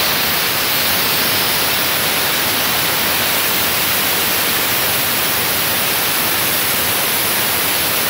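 Compressed air hissing steadily out of the Elgi 7.5 hp air compressor's tank as it is bled down, a loud, even rush of air. The motor is stopped, and the tank pressure is falling toward the point where the pressure switch restarts the pump.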